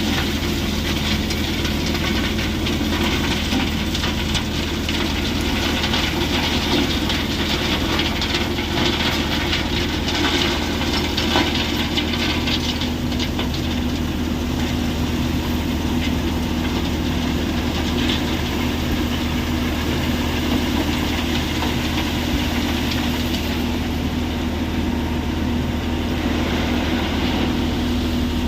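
Heavy machinery at a rock crushing plant running steadily: a constant low engine-and-motor hum under a dense layer of small knocks, with a steady tone that comes in about twelve seconds in.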